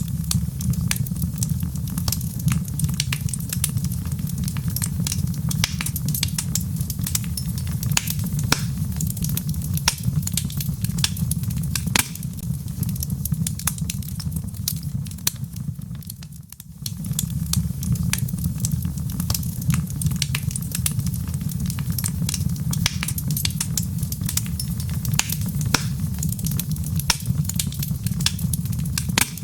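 Wood fire crackling in a fireplace: many sharp pops and snaps over a steady low rumble, dipping briefly a little over halfway through.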